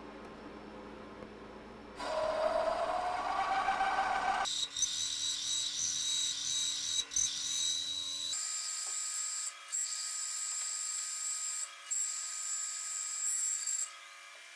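Drill bit in a milling machine cutting dowel holes in a Mazda 20B rotary engine's cast-iron housing. About two seconds in, a loud rising whine starts, then gives way to a high-pitched steady squeal with a few brief breaks, stopping about a second before the end.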